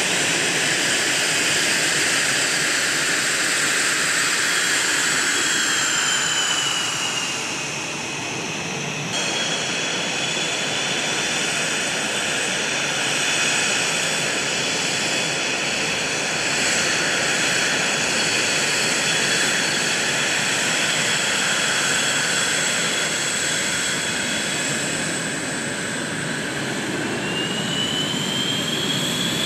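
CF-18 Hornet's twin turbofan engines running as the jet taxis: a steady jet rush with high whining tones. The whine drops in pitch about seven seconds in, the sound changes abruptly a couple of seconds later, and a whine rises again near the end.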